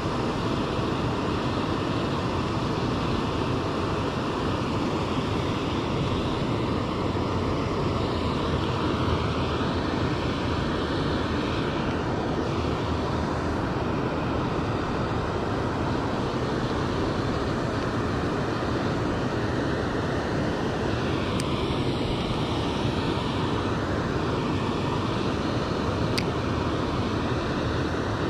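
Steady rushing roar of water pouring over a concrete spillway weir, even and unbroken throughout.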